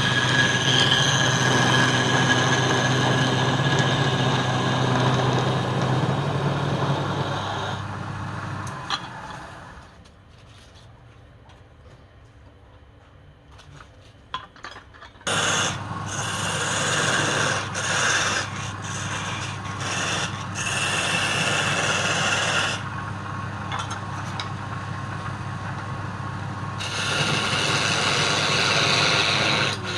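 Wood lathe motor running while a turning tool scrapes the spinning wood. The motor hum cuts out about nine seconds in, leaving a few seconds of quieter sounds, and the lathe starts up again with scraping about fifteen seconds in.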